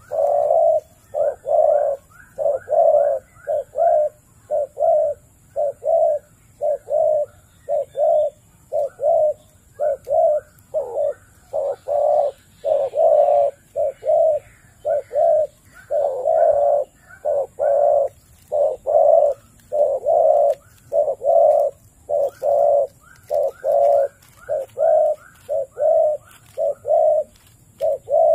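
A dove cooing over and over in short notes, about two a second, with runs of higher, short rising notes over the coos at times.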